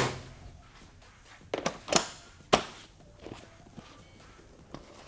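A Kawasaki ZX-6R's seat being handled and set back onto the bike: three sharp knocks about one and a half to two and a half seconds in, then a few fainter taps.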